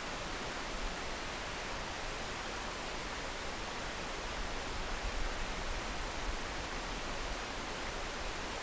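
Wind blowing across the microphone: a steady rushing hiss with a low rumble underneath, rising a little in gusts.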